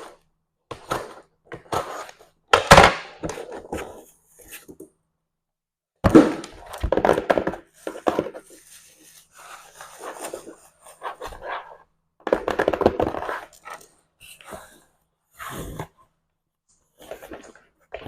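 Irregular tapping, knocks and handling noises from unboxing a package, with longer rustling or scraping stretches about six and twelve seconds in.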